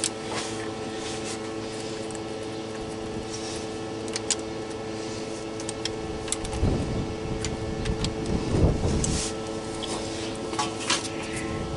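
Scattered light clicks and rubbing of a hand socket wrench turning the oil-pump mounting bolts, over a steady background hum.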